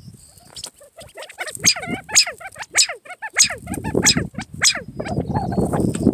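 California quail calling: a quick run of short, sharp call notes, each falling in pitch, several a second. A low rumbling noise comes in about halfway and stays under the calls.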